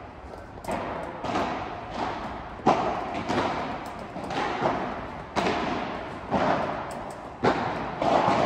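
Padel balls being struck by rackets and bouncing on the court, a sharp knock about once a second echoing through a large indoor hall; the loudest knock comes a little under three seconds in.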